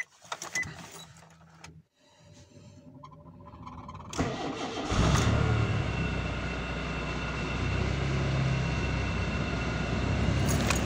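Nissan Wingroad engine starting at −40 °C: it builds up and catches about four seconds in, then runs steadily. The engine oil is frozen thick, so the oil warning lamp stays lit with no oil pressure.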